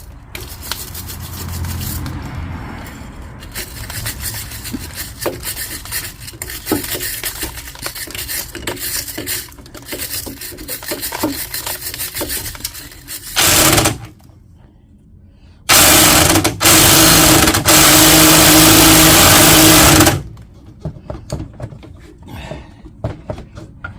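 Wire brush scrubbing metal suspension parts, a long stretch of rapid scratching strokes. About thirteen seconds in a power tool runs briefly, then again steadily for about four seconds near the end.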